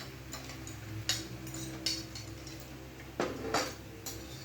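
Eating at the table: a few scattered sharp clicks and taps, about five in four seconds, over a steady low hum.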